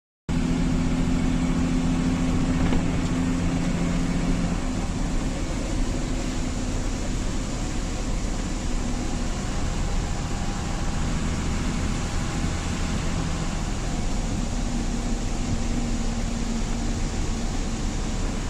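A vehicle engine running steadily, with a low hum under a continuous hiss.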